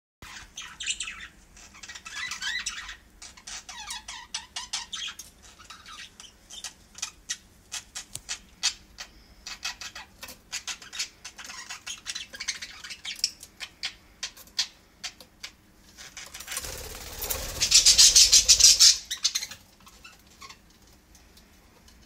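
Budgerigars chattering: warbling, gliding chirps mixed with quick short chirps and squawks. Near the end a loud rustling burst lasting about three seconds drowns them out.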